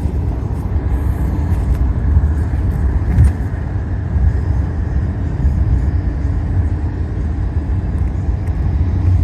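Steady low road-and-engine rumble inside a moving car's cabin, with a light knock about three seconds in.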